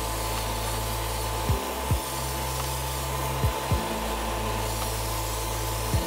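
Background electronic music: a pair of deep kick-drum hits about every two seconds over a steady bass. Beneath it runs a steady rushing air hiss, like the extractor fan of a hobby paint booth.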